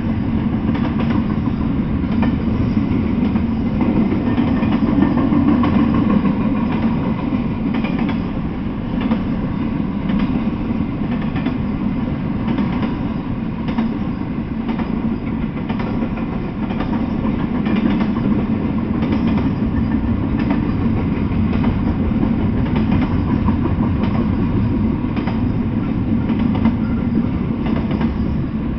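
Double-stack intermodal freight train's well cars rolling past: a steady rumble of steel wheels on the rails, with faint clicks as the wheels cross the rail joints.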